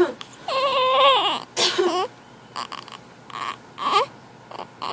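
Infant fussing in a string of short, wavering cries, the longest lasting under a second, followed by fainter whimpers.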